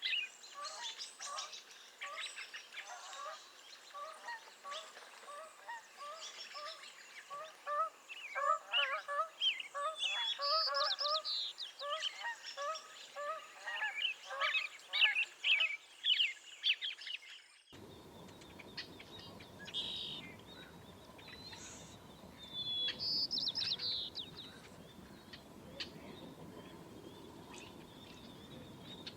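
Birds calling: short calls repeated over and over, with higher chirps mixed in. About two-thirds of the way through, the sound cuts to a steady rushing background with only a few scattered bird calls.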